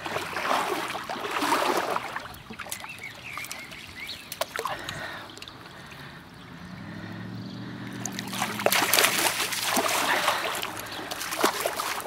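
Water splashing and sloshing around a landing net as a hooked trout is brought in, in bursts at the start and again in the second half. In the quieter middle a low droning hum swells and fades.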